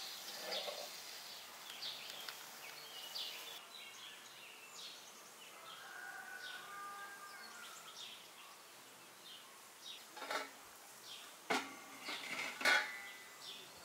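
Outdoor rural background with small birds chirping throughout. Near the end come a few sharp knocks and clinks, the loudest sounds, like kitchenware being handled.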